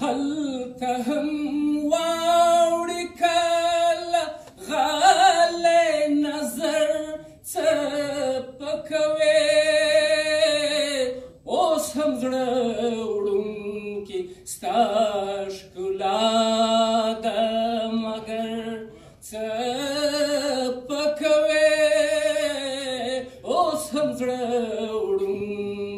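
A man singing unaccompanied through the hall's microphone, long held, wavering notes in phrases of a few seconds broken by short pauses for breath.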